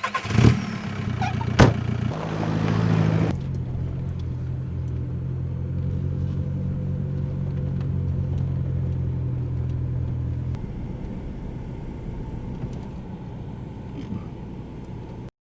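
A car engine starts and runs a little faster for about three seconds, with two sharp clicks early on, then settles to a steady idle that gets quieter about ten seconds in. The sound cuts off suddenly just before the end.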